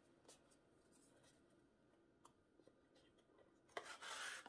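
Near silence with a few faint taps. Near the end comes a short, dry rub of cardstock on cardstock: a paper drawer sliding in its handmade box.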